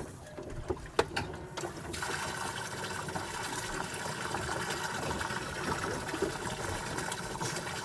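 Metal tongs clicking a few times against a wire grill rack as fish are turned over a charcoal stove, then a steady hiss from about two seconds in.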